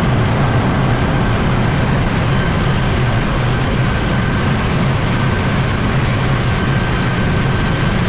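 Ship's engine-room machinery running: a steady, loud, low drone with a faint steady high whine above it.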